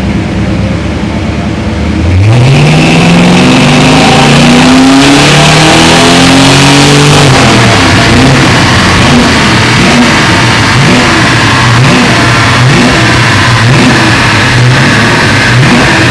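Plymouth Barracuda V8 running on a chassis dyno during a power run. After about two seconds of low running it opens up suddenly, and the engine pitch climbs for several seconds. The revs come back down around eight seconds in, and the engine runs on unevenly.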